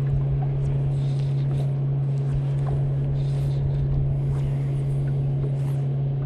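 A boat motor running steadily: a constant low hum that does not change in pitch or level.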